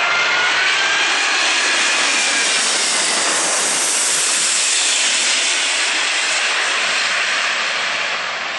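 Four-engine Airbus A380 on final approach passing low overhead with its gear down: steady jet engine roar with a fan whine that drifts slightly down in pitch, swelling to its loudest about four seconds in as the airliner goes over, then easing off a little near the end.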